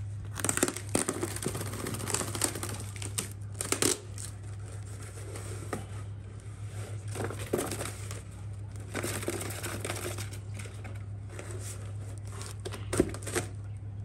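Cardboard box being handled and shifted against a wooden bird cage: irregular rustling, scraping and crinkling, with a few sharper knocks, over a steady low hum.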